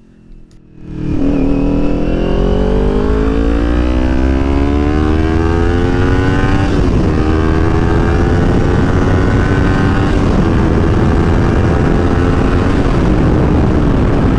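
Kawasaki Ninja 400's parallel-twin engine accelerating hard, its pitch climbing steadily for several seconds, dropping at an upshift about seven seconds in, then holding roughly steady at speed over wind noise.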